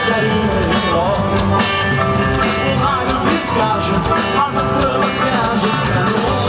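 Rock-and-roll song: a voice singing over a band, with a steady beat.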